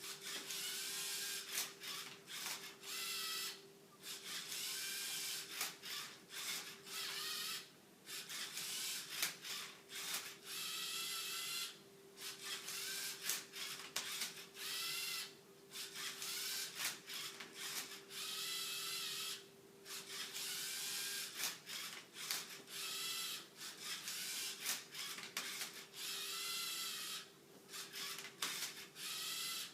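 LEGO Mindstorms EV3 servo motors whirring in a series of short runs with brief stops between them, as the robot turns and flips a Rubik's cube in the last stage of its solve. Each run starts with a rising whine, and a steady faint hum continues underneath.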